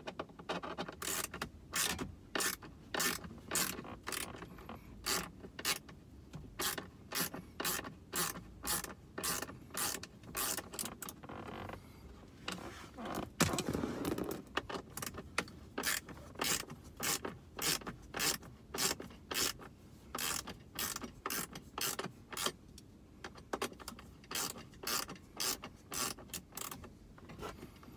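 Hand ratchet clicking at about two clicks a second, in runs, as screws are backed out by hand. There is one louder knock about halfway through.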